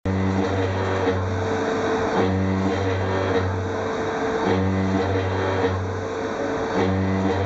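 CNC machine spindle driving a Sumitomo milling cutter at high speed through a metal block, with a steady mechanical hum that breaks off and comes back in a regular cycle about every two seconds.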